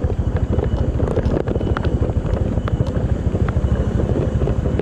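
Motorcycle engine running while riding, with wind buffeting the microphone. A few light knocks or rattles come in the first couple of seconds.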